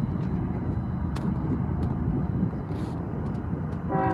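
Steady low rumble, then near the end a diesel locomotive's air horn starts to sound.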